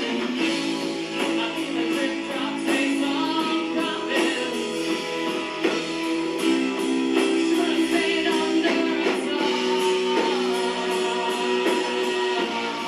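Four-piece rock band playing a slow song live: electric guitar, bass, drums and keyboard, with long held chords under a steady drum beat.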